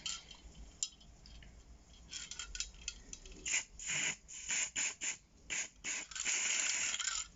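Paint being applied to a washing machine's metal casing in a run of short scratchy strokes, then one longer stroke about six seconds in.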